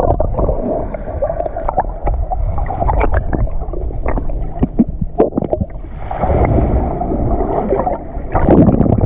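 Seawater heard through a submerged camera while swimming underwater: a muffled low rush and gurgle of moving water with many scattered clicks and pops, and a louder surge near the end.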